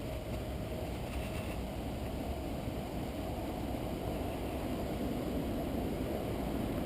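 Steady low rushing of water from a small stretch of white water where a drainage outflow spills into the creek.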